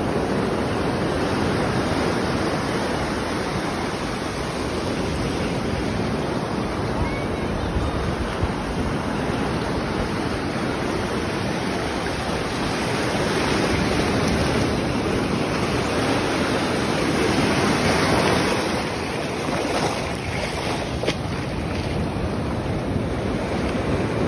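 Surf washing in and out over the shallows at the water's edge, a continuous rushing wash that swells a little past the middle, with wind buffeting the phone's microphone.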